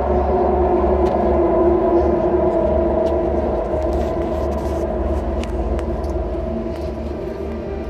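A deep, steady rumble with a sustained drone over it, played from the light show's soundtrack through outdoor loudspeakers and fading a little toward the end.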